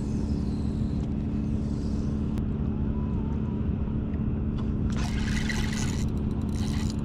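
A steady low hum and rumble runs throughout, with a brief rush of noise about five seconds in.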